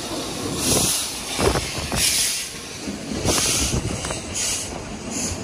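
Train running on the railway, with bursts of hiss and low thuds about once a second.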